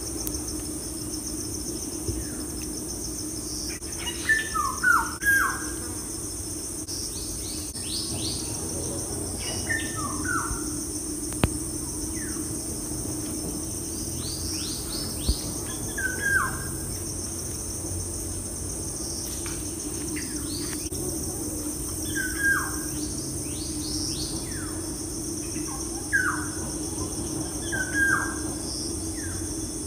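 Small birds chirping, in clusters of quick falling calls every couple of seconds, over a steady background hiss and hum.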